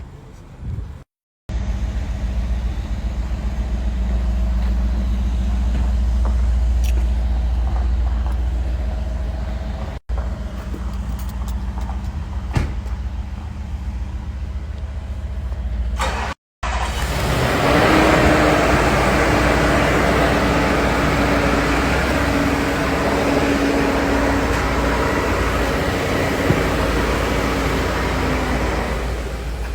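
Vehicle running, heard across several spliced clips: a steady deep rumble, then, after a cut a little over halfway, a louder rushing noise with a steady hum under it.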